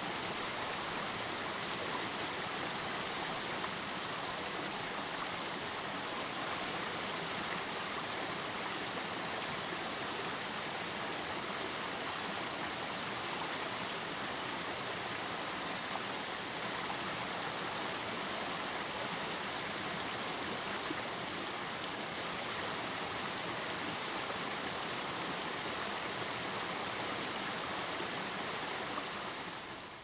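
Steady rush of running water, with no changes in level until it falls away abruptly near the end.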